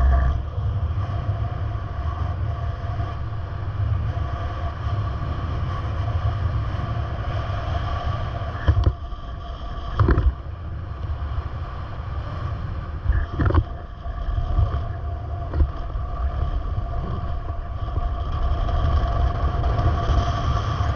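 Steady low rumble of a running vehicle with an even hum over it, broken by a few short knocks about nine, ten and thirteen seconds in.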